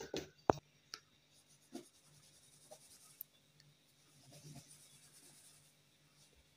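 A hand rubbing and brushing flour across a tiled worktop and working soft dough: faint dry rubbing and scraping, with a few sharp taps early on, the loudest about half a second in.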